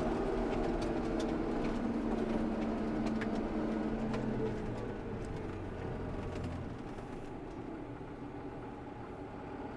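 Tractor engine running, heard from inside the cab while driving; about halfway through the engine note drops and it gets quieter as the tractor eases off.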